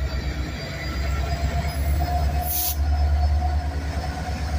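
Norfolk Southern diesel locomotive running close by with a deep, steady engine drone, over a thin, steady squeal of train wheels on the rails; a brief hiss about two and a half seconds in.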